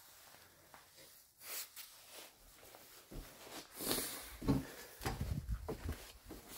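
Footsteps and knocks on the wooden floor and door of a backcountry hut, a few seconds apart, then from about five seconds in a low, uneven rumble of air buffeting the microphone once outside.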